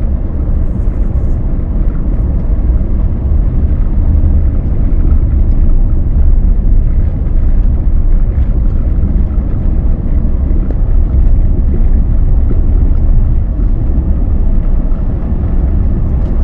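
A vehicle driving along a road: a steady, loud low rumble of engine and tyre noise.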